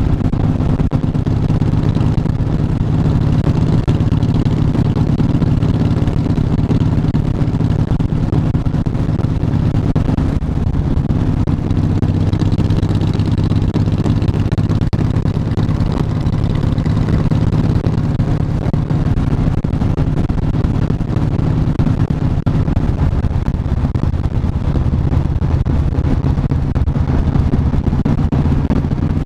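Motorcycle engine running steadily at cruising speed, heard from the rider's seat, with its pitch shifting slightly a few times as the throttle changes. Wind and road noise rush over it.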